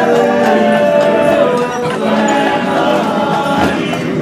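Barbershop quartet singing a cappella, male voices holding sustained chords in close harmony.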